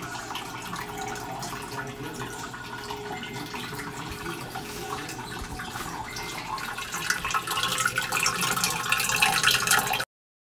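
Aquarium water trickling and dripping, a steady wet bubbling noise that grows louder and more crackly about seven seconds in, then cuts off suddenly.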